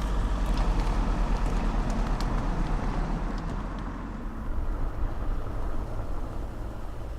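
Steady low rumble and hiss, like a running vehicle or road traffic, with a few faint clicks in the first few seconds.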